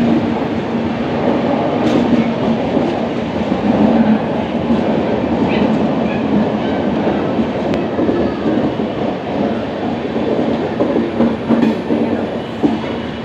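A train running along the rails with a steady, continuous rumble.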